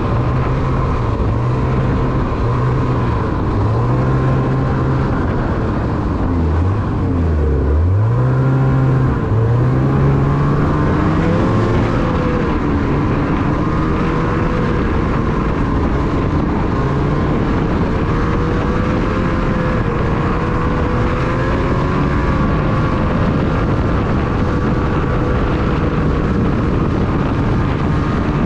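Two-stroke snowmobile engine heard from the rider's seat while trail riding. The revs waver, drop sharply about seven seconds in, climb back within a couple of seconds, then hold a fairly steady cruising pitch.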